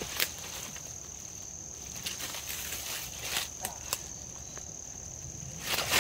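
A few short crackles and rustles, as of someone moving about in dry leaf litter and brush, with a busier stretch near the end. A faint steady high-pitched whine runs underneath.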